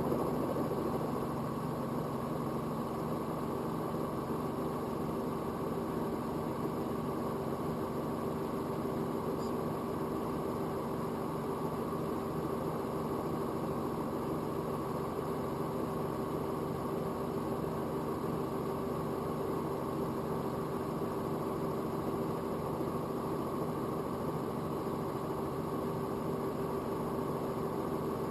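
Robinson R44 helicopter's piston engine and rotors running at a steady, unchanging drone.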